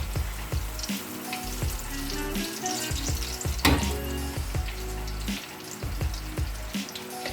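Breaded vegetables sizzling as they fry in hot oil, with a sharp knock about halfway through.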